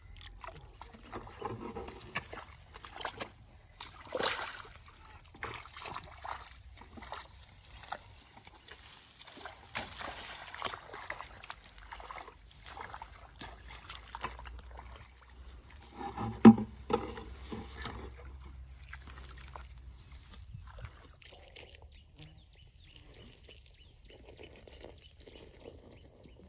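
Shallow muddy water sloshing and splashing in irregular bouts, as hands and feet work in a flooded rice field, with one louder sharp knock about two-thirds of the way through.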